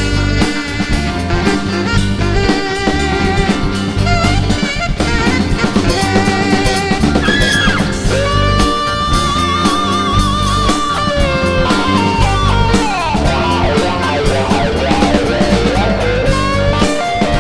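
Rock band playing an instrumental passage: drum kit and electric bass keeping a steady groove under an electric guitar lead, which holds a long note with vibrato about halfway through and then slides down.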